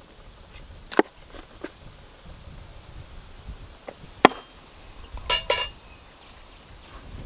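Heavy hook-tipped cleaver chopping through raw chicken onto a wooden board: two sharp chops, about a second in and just past four seconds, with lighter knocks between and a quick run of knocks a little past five seconds.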